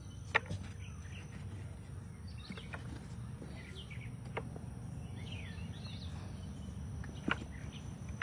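Outdoor garden ambience: a low steady background hum with a few faint bird chirps and three light clicks or knocks.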